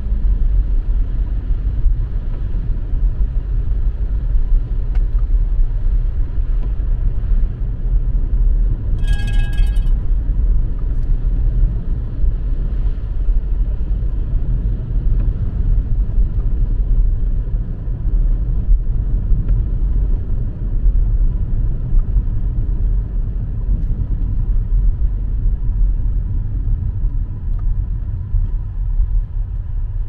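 Steady low rumble of a car heard from inside the cabin while driving. About nine seconds in, a short electronic chime sounds once.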